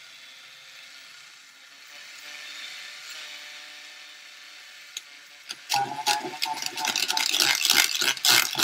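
Battery-powered Master Tools paint stirrer's small motor whirring as its paddle spins in a pot of acrylic paint. It runs faint and steady at first, then a little over halfway through grows much louder with a rattling clatter.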